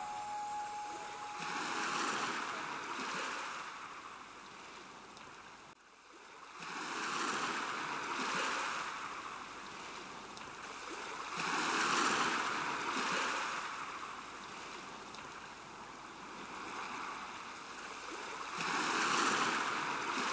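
Sea waves washing onto a shore, the surge swelling and fading four times.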